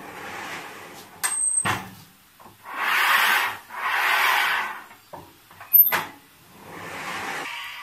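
A metal spreader drawn across the hot steel plate of a flatbread-making machine, two hissing, scraping sweeps with steam rising off the plate. Sharp metal clicks and clanks come about a second in and again near six seconds.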